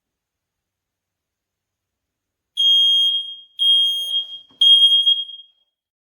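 Brennenstuhl RM C 9010 smoke alarm sounding: three loud, piercing high-pitched beeps about a second apart, starting about two and a half seconds in.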